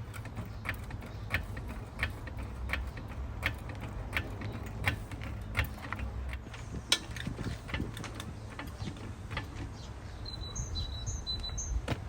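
Hydraulic trolley jack being pumped to lift a car, with a regular click and creak about every two-thirds of a second from the handle strokes. A low steady hum lies underneath, and a few bird chirps come near the end.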